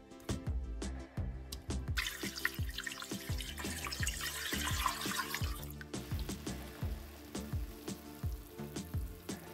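Background music with a steady beat throughout. About two seconds in, water starts running from a kitchen tap, runs for nearly four seconds, then stops.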